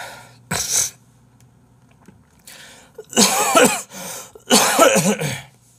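A man coughing and clearing his throat in three bouts: a short one about half a second in, then two longer, louder ones in the second half.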